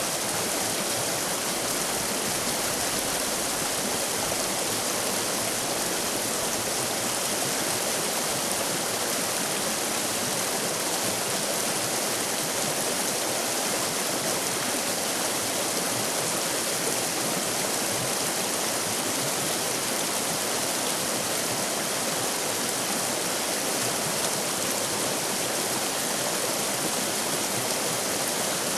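River rapids: fast water rushing steadily over rocks, an even, unbroken rush.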